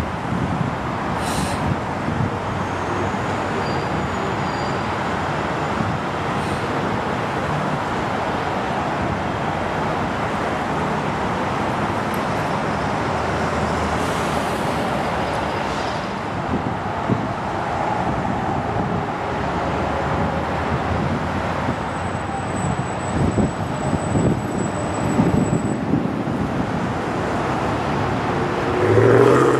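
Narrow-body jet airliner's engines running as it slows on the runway after landing, a steady rush of noise, with a louder swell near the end.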